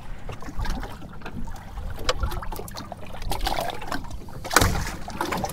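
Water sloshing and lapping against a small fiberglass boat rocking in wind-driven chop, with scattered handling clicks and one louder knock about four and a half seconds in.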